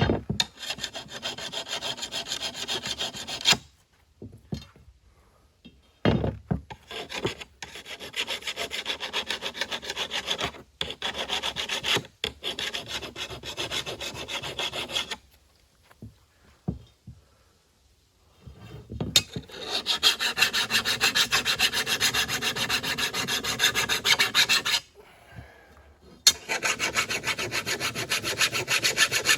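Hand flat file rasping across the edge of a steel lawn mower blade in runs of quick back-and-forth strokes, sharpening the cutting edge. The filing stops briefly three times, the longest pause a few seconds past the middle.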